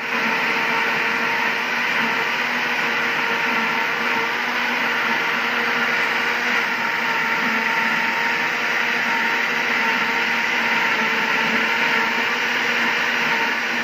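Electric countertop blender with a plastic jar, switched on and running steadily, blending cut melon, peaches and milk into a milkshake.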